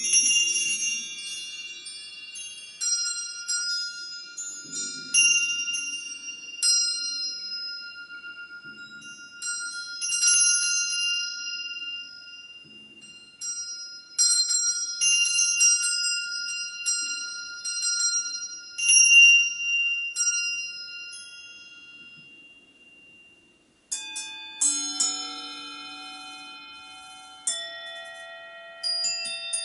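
Ambient bell-like chime music: sparse struck high notes that ring on and overlap in long decays. About 23 seconds in it fades almost to nothing, and a new passage of chiming tones starts abruptly a second later.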